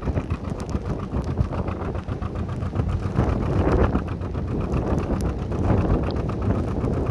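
Narrowboat's engine running steadily with an even chugging rhythm while under way, with wind buffeting the microphone.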